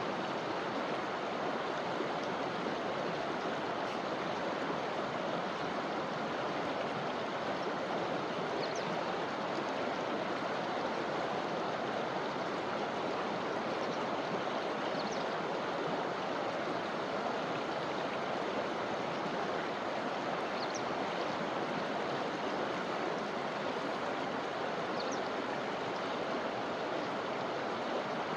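River flowing steadily, a constant rush of running water, with a few faint, brief high chirps now and then.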